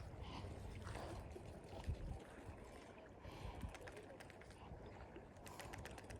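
Faint lakeside ambience: a low steady rumble with soft water sounds, a small knock about two seconds in, and a quick run of light clicks near the end.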